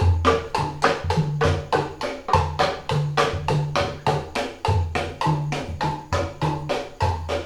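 Patrol sahur percussion group playing a fast, even beat, with sharp wooden knocks from bamboo slit drums (kentongan) over low, booming drum strokes.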